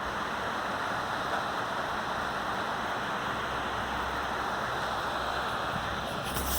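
Heavy rain falling on a metal roof, a steady dense hiss. A low rumble comes in near the end.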